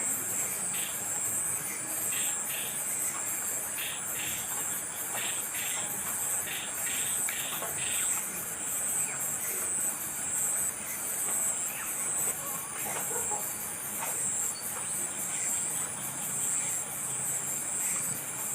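Steady high-pitched pulsing chirring of crickets, with short faint ticks repeating in the first half.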